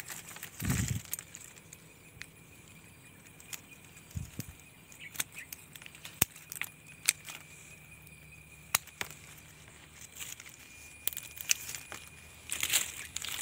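Hand pruning shears clicking and snipping at thin fig branches: a string of sharp, irregular metallic clicks, with a dull thump about a second in.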